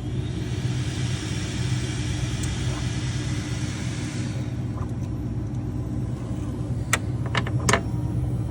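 Bambu A1 3D printer running: a steady hum from its motors and fans, with a hiss during the first four seconds and a few sharp clicks near the end.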